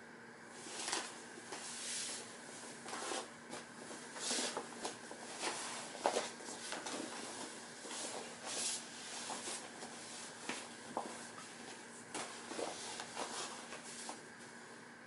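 Scuffing, rustling and soft knocks of a person shifting his body and legs across a vinyl-covered folding exercise mat, in an irregular series with one sharper knock about six seconds in, over a faint steady hiss and hum.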